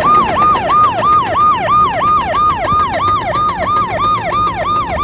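Emergency vehicle siren in a fast yelp. Each cycle rises sharply, holds briefly and falls, about three times a second.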